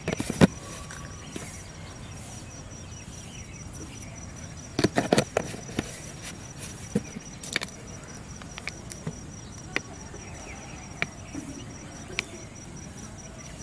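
A steady, high insect trill pulsing evenly throughout. Over it come scattered clicks and knocks from a plastic jar being handled, with a cluster of louder knocks about five seconds in.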